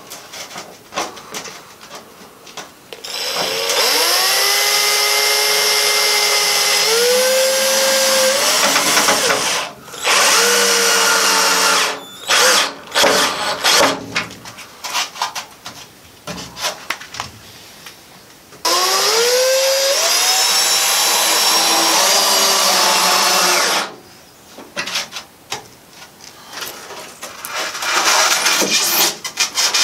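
Power drill-driver driving screws through foam roof panels into a wooden frame, the screw heads set flush with the foam. It runs in several spells of a few seconds each. Each spell starts with a rising whine as the motor spins up, then runs steady. Clicks and handling noise fall between the spells.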